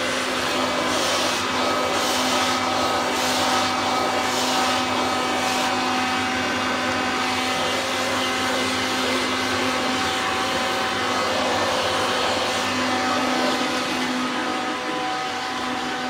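Hoover Turbomaster Total System vacuum cleaner running steadily with its dusting brush tool in use, a constant motor hum under a rush of suction air. In the first few seconds the hiss swells and fades about once a second as the brush is worked back and forth.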